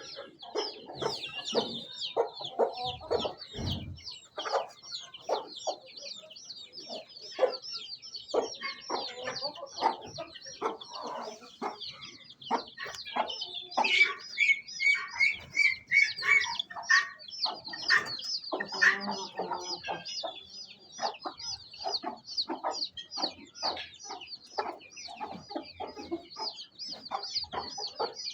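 Chickens clucking in a steady stream of short calls, over a constant high-pitched chirping.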